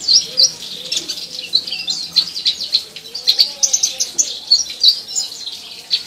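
Purple-throated sunbird singing: a fast, nearly unbroken run of short, high chirps and twittering notes.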